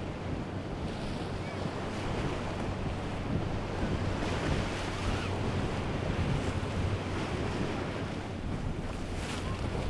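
A large motor yacht's engines running with a steady low hum under the rush of its wake and the surf, with wind buffeting the microphone.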